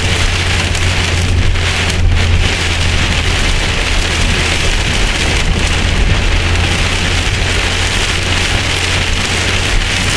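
Heavy rain pelting a car's windshield and roof, heard from inside the moving car as a dense, steady hiss, with a steady low hum underneath.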